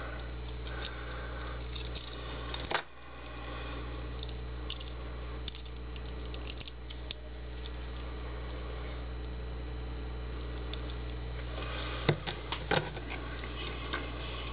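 Small metallic clicks and light scraping of a deadbolt lock cylinder and picking tools being handled, with sharper clicks about three seconds in and twice near the end, over a steady low electrical hum.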